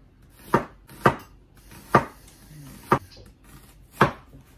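Kitchen knife chopping a red onion on a plastic cutting board: five sharp knocks of the blade striking the board, roughly one a second and a little uneven.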